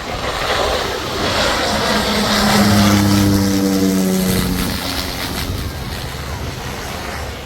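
Airplane passing low overhead on landing approach: a loud rush of engine noise that builds to a peak about three seconds in and then fades, with a low drone whose pitch drops as it goes by.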